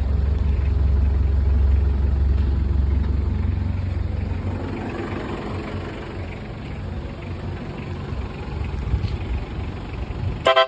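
Vehicle engine idling with a steady low hum that weakens after about four and a half seconds. Right at the end, a multi-note air horn starts to play.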